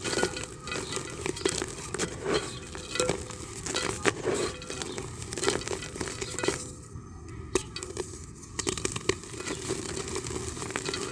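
Hard, dry chunks of multani mitti (Fuller's earth) crumbling between the fingers, with the powder pattering into a terracotta clay pot. The crackles and crunches are dense and uneven, and ease off briefly about seven seconds in.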